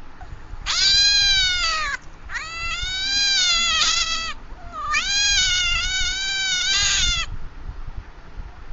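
Domestic cat meowing: three long, drawn-out meows in a row, each lasting one to two and a half seconds, with short pauses between them.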